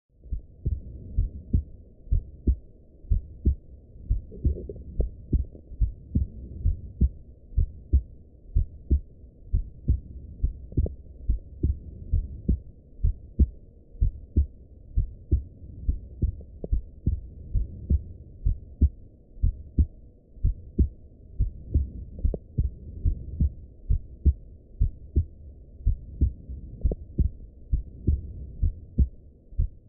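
Normal human heart sounds heard through a stethoscope: a steady, regular lub-dub, the first and second heart sounds coming in pairs of dull, low thuds.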